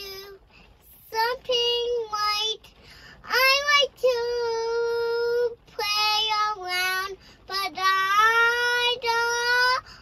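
A young girl singing in short phrases, holding some notes for a second or more.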